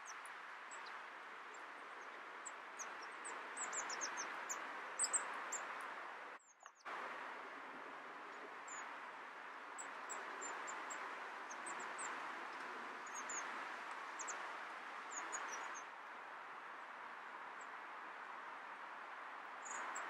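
Many short, very high, thin calls of small woodland birds, coming in clusters over a steady background hiss. The sound drops out briefly about six and a half seconds in.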